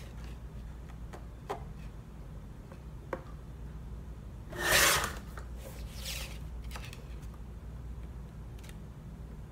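Paper being handled and worked at a craft table: small clicks and light rustling, with one louder half-second rustle of paper about halfway through and a fainter one a second later, over a steady low hum.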